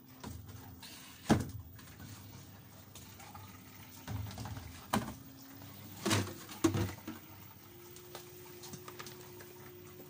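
LG front-loading washing machine running with a steady low hum that shifts higher in pitch about eight seconds in. Several sharp knocks and bumps stand out over it.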